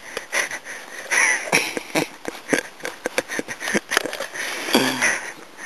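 Irregular crackling and rustling close to the microphone, a dense run of short clicks and crunches, broken by brief mumbled voice sounds about a second in and again near the end.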